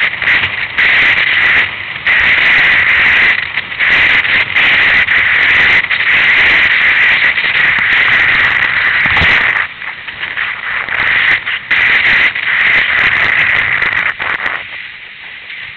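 Loud rushing wind and water spray hitting a camera mounted on a windsurf board planing over choppy sea, gusting unevenly, with one hard thump a little past the middle. The noise drops away near the end.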